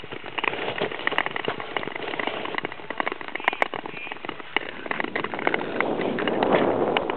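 Long-distance (Nordic tour) ice skates scraping and gliding over natural lake ice, with a steady patter of short crackling clicks from the blades. A rush of wind on the microphone builds near the end.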